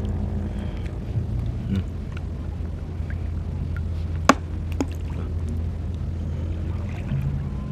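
Shallow seawater sloshing and trickling as a person wades and reaches into it, over a steady low rumble, with one sharp click a little over four seconds in.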